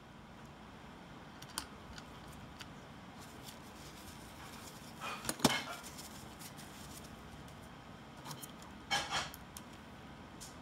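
Light clicks and taps of small parts and a screwdriver being handled on a workbench, with a sharp knock about five seconds in and two close knocks near nine seconds.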